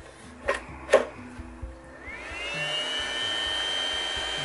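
Two plastic clicks as a Ryobi 40-volt battery is seated on its charger, then about two seconds in the Motomaster Eliminator 1000 W sine-wave inverter's cooling fan starts with a rising whine that settles into a steady high hum. The fan comes on under the charger's load, which the owner thinks happens whenever the draw passes a certain wattage.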